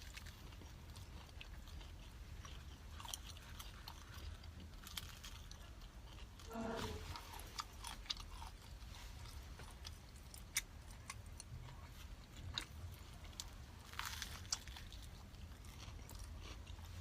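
Close-up eating sounds of a fried sesame ball (glutinous rice ball with a sesame coating): quiet biting, chewing and light crunching, with scattered sharp mouth clicks.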